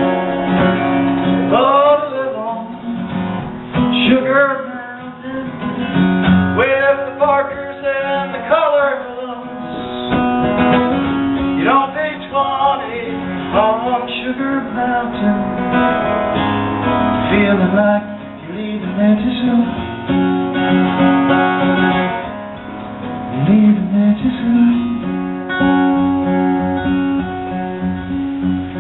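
Acoustic guitar played solo, strummed and picked, with a man singing at times.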